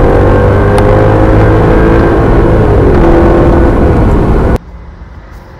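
Car engine under full-throttle acceleration, heard from inside the cabin; its pitch climbs, dips once about three seconds in, then climbs again. Near the end the engine sound cuts off abruptly, leaving a much quieter sound.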